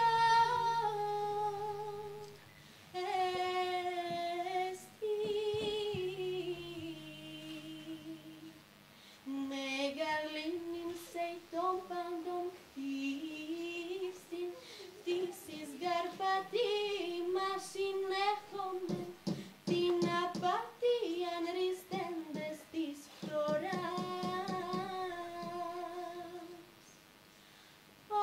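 A young woman singing solo, a slow melody of long held notes in phrases broken by short breaths.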